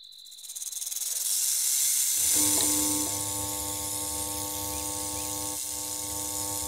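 Sound effects: a loud hiss swells over the first second or so. About two seconds in, a neon sign flickers on with a few quick clicks and settles into a steady electrical hum, while the hiss goes on.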